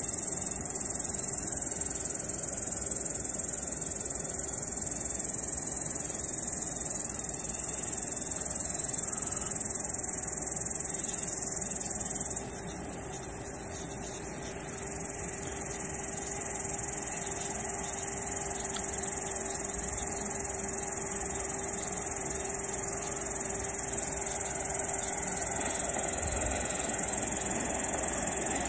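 Steady, high-pitched chorus of crickets trilling continuously. Underneath, a faint low hum and rumble of an approaching freight train builds slightly near the end.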